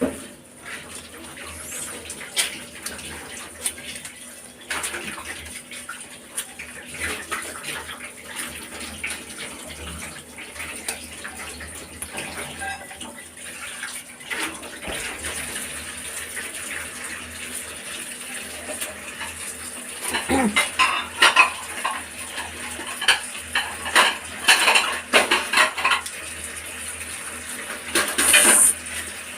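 Metal pots and kitchen utensils clinking and clattering, with some splashing water. The clinks come thick and fast in a couple of runs in the last third.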